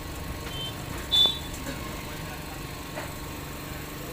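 Steady low background rumble, with one short, loud high-pitched chirp about a second in and a faint click around three seconds.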